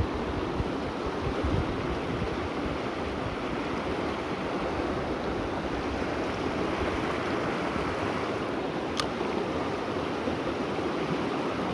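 Shallow river running fast over stones, a steady rushing of water, with one short click late on.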